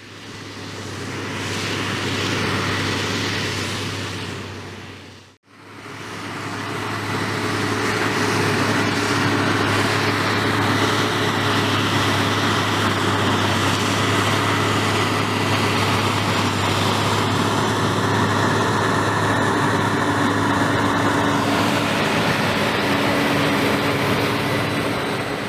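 Same Diamond 265 tractor's Deutz 1013 six-cylinder diesel engine running steadily under load while pulling a plough through the soil. About five seconds in the sound fades out and straight back in.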